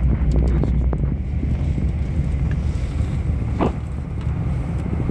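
Steady low rumble of a moving aerial tramway cabin, with wind on the microphone. A few faint clicks come in the first second, and a brief higher sound about three and a half seconds in.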